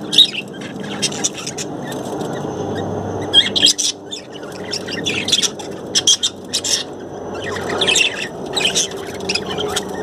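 A group of budgerigars chirping and chattering in quick high bursts, with short pauses between the bursts, over a steady low background noise.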